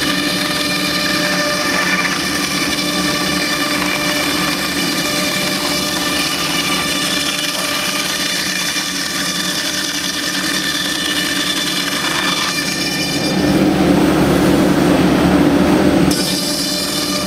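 Thermwood Model 45 three-axis CNC router's spindle running steadily, its bit routing corrugated fiberboard, a machine whine with many even tones over cutting noise. Near the end it turns louder and rougher for about three seconds, then changes back abruptly.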